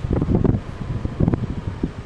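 Wind buffeting the camera microphone: irregular low rumbling gusts.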